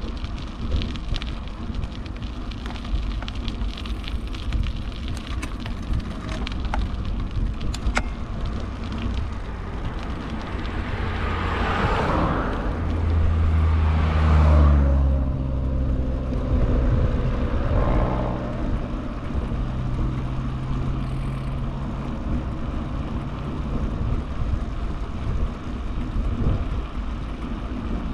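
Steady wind rush on the microphone and tyre rumble from a bicycle riding on asphalt. About halfway through, a small kei truck passes in the oncoming lane: its engine hum and tyre noise swell, drop in pitch as it goes by, then fade over several seconds.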